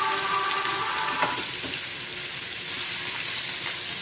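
Chopped onion sizzling in hot oil in a frying pan, a steady frying hiss that eases a little after the first second.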